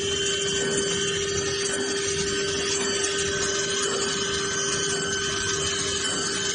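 CNC router spindle running with a steady high whine while its head routes a laminated particleboard panel, with a constant hiss of cutting over it.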